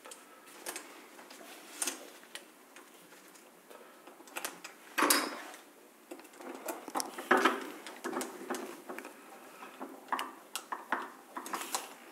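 Scattered small clicks and taps of metal hex standoffs being fitted and screwed onto a small circuit board by hand, with a couple of louder knocks about five and seven seconds in.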